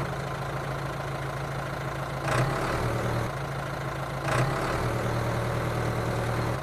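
Mini tractor's small motor running with a steady low hum, broken twice by a brief noisy burst about two seconds apart.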